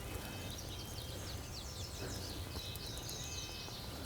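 A small songbird sings a quick run of high, down-slurred notes, then a short high warble, over a faint steady outdoor hush.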